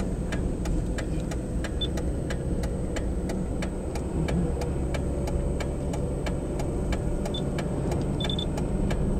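Car's turn-signal flasher clicking steadily, a few evenly spaced clicks a second, over the low steady hum of the engine and tyres inside the cabin.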